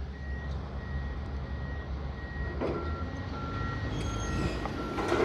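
Demolition machinery's reversing alarm beeping in a steady run over a diesel engine's low rumble. A higher-pitched alarm gives way to a lower one about two and a half seconds in. Short crunches of debris come then and again near the end.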